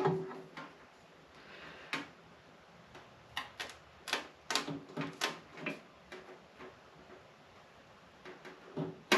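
Opens with the tail of a cartoon dog's wheezing snicker sound effect, then about a dozen light, irregular clicks and taps from hand work on the metal tank and its mounting.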